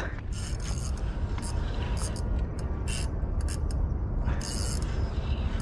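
Steady low rumbling outdoor noise, with a few short hissing sounds about half a second in, around two and three seconds in, and again about four and a half seconds in.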